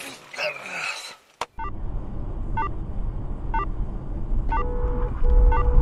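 Car cabin noise while driving: a low engine and road rumble that slowly grows louder, with a short high electronic beep about once a second. Near the end a steady tone sounds twice.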